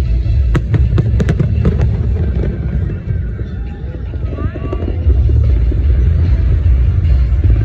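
Fireworks bursting: a run of sharp cracks in the first two seconds over a heavy, continuous low booming rumble that eases off briefly and swells again about five seconds in.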